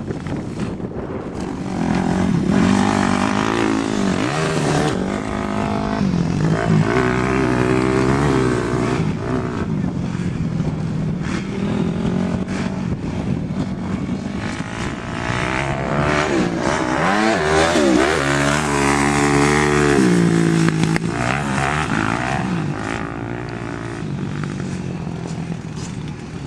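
Dirt bike engine running under a rider, its pitch rising and falling over and over as the throttle is opened and closed through the gears. It is loud throughout, swelling a couple of seconds in and easing off near the end.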